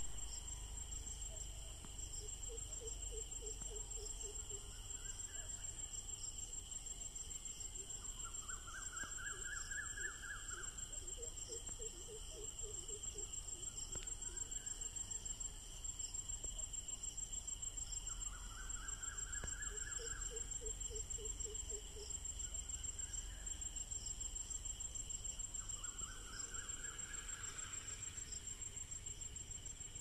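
Night chorus of crickets trilling steadily in a high, continuous ring. Over it, some animal calls recur every several seconds: a short rapid pulsed call low in pitch, and a rising, rapidly pulsed call higher up.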